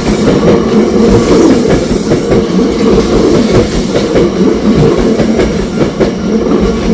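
Hankyu Kobe Line train running close past a level crossing: a steady loud rumble with the wheels clattering over the rail joints.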